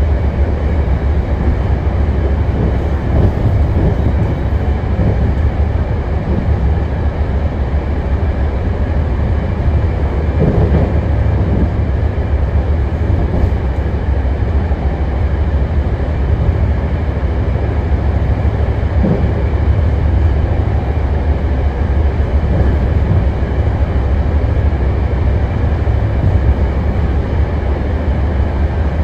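Steady low rumble of a BART Legacy Fleet electric rapid-transit train running along the track, heard from inside the car. Brief rattles come about ten and nineteen seconds in.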